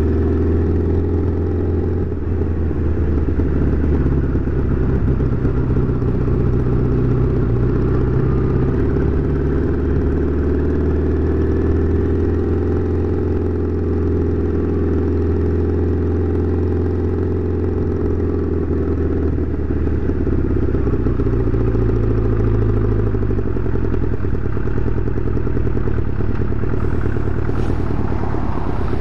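Motorcycle engine running steadily at road speed, heard from the rider's seat with wind and road noise. About twenty seconds in, the note drops and turns lower and uneven as the bike slows.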